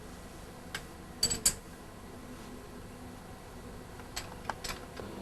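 A few light metallic clicks and clinks, the loudest a quick cluster of ringing clinks about a second and a half in, with fainter clicks near the end, over a faint steady hum.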